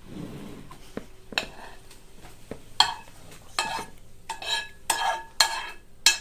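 Fried carrots being scraped out of a frying pan into a plastic bucket: a utensil scraping and knocking against the pan in a run of about half a dozen clattering strokes, most of them in the second half, with the pan ringing briefly.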